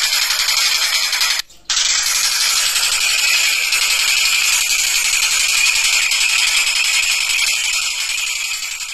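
Tengkek buto kingfisher calling in a loud, rapid, harsh chatter that runs on without pause, cut by a brief gap about a second and a half in.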